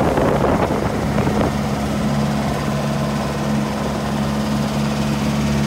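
Engine of a motorized outrigger boat running steadily under way, a constant low drone with the rush of wind and water around it.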